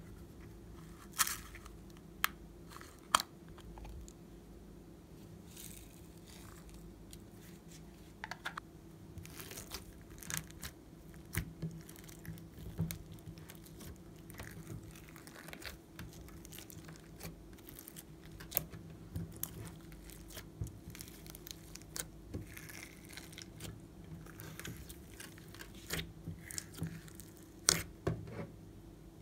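Hands mixing several slimes with foam beads and glitter in a glass dish: sticky tearing and crackling of the slime throughout, with a few sharp clicks in the first few seconds and again near the end.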